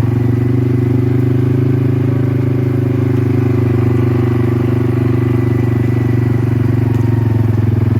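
A vehicle's engine running steadily, an even drone with no change in pitch.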